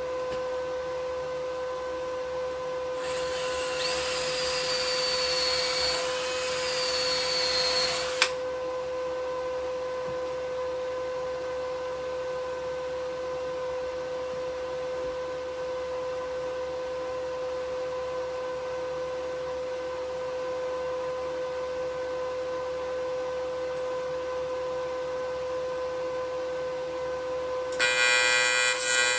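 TIG welder set up for aluminium, with a steady electrical whine throughout. From about 3 to 8 seconds in there is a loud hiss with a faint whistle. Near the end a harsh buzz starts as the AC arc is struck on the aluminium.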